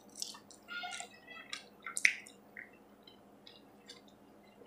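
Close mouth sounds of someone eating mac and cheese: wet chewing and lip smacks, with light clicks of the utensil against the plastic bowl. They are busiest in the first two seconds, the loudest about two seconds in, and thin out to a few faint ticks.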